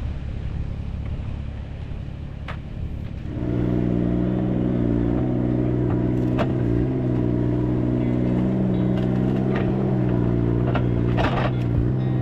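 Low rumble, then about three and a half seconds in a vehicle engine comes in and runs steadily, its pitch shifting slightly now and then, with a few short clicks over it.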